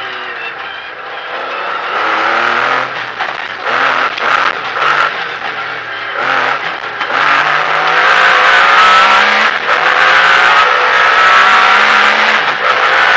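Metro 6R4 rally car's V6 engine heard from inside the cabin, rising and falling in pitch as the car slows and accelerates. From about halfway in it pulls hard with a long climb in pitch, the loudest stretch, then drops briefly near the end.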